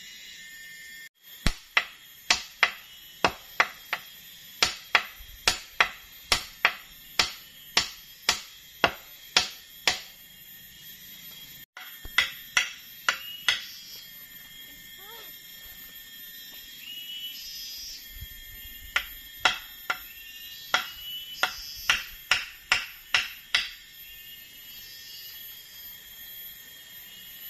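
Hammer blows on a wooden ladder rung, about two a second, in three runs with pauses between them, over a steady high-pitched background drone.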